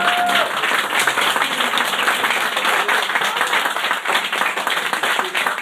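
Audience applauding: many hands clapping at once, steadily and fast.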